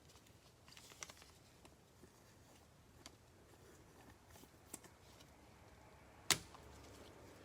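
Faint handling of Prizm basketball card packs and cards: a few light clicks and rustles, with one sharper click about six seconds in.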